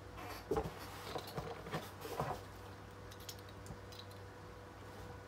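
Soft handling noise from small die-cast toy vehicles and their packaging: a few light clicks and knocks in the first couple of seconds, then only a steady low hum.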